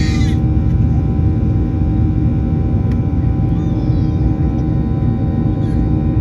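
Inside the cabin of a Boeing 737-800, the CFM56-7B engines run with a steady, loud rumble and rush, with several steady fan tones over it.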